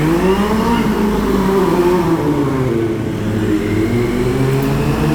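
Sport motorcycle engine running under way. It rises in pitch as it accelerates at the start, then holds and wavers with the throttle, over a steady rushing noise.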